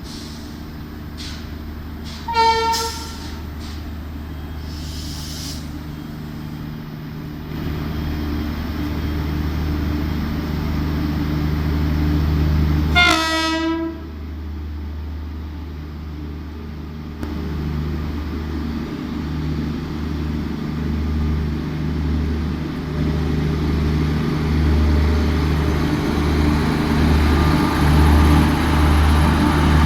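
WAP-7 electric locomotive sounding its horn twice: a short blast about two seconds in and a longer one about thirteen seconds in. Beneath it the train runs with a steady low hum and rumble that grows louder and pulses in the second half as the train rolls in.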